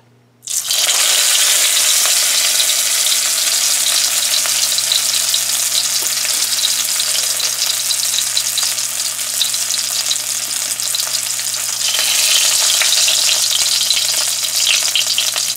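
Shrimp-stuffed bitter melon (karela) laid into hot oil, sizzling loudly at once about half a second in and frying steadily, growing slightly brighter near the end.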